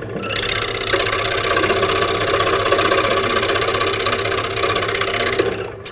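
Scroll saw cutting dovetail pins in a wooden board: the fast up-and-down blade chattering through the wood. It starts abruptly just after the start and cuts off shortly before the end.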